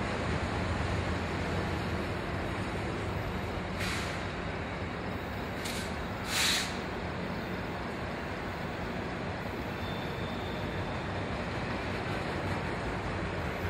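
Air brakes of a train at the station hissing three times in short bursts, the loudest about six and a half seconds in, over a steady low rumble.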